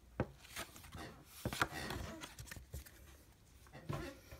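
Handling noises: a few light taps and knocks at irregular times, with paper rustling about halfway through, as a paper card-checklist booklet and a cardboard box are handled and set down.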